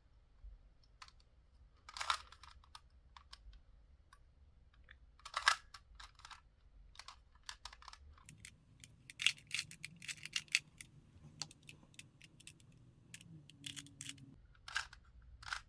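A 2x2 Rubik's cube being turned by hand: scattered plastic clicks and clacks of the layers turning, with a quicker run of turns about nine to eleven seconds in.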